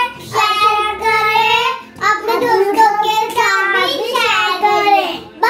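Young girls singing in high children's voices, a few sung phrases with held notes and short breaks between them.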